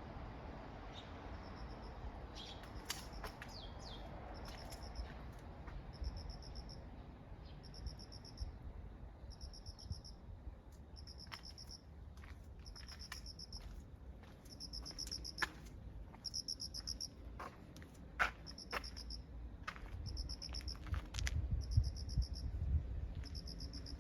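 An insect chirping in a regular train of short, high, pulsed buzzes, about one to one and a half a second, with scattered sharp clicks and a few brief bird chirps near the start.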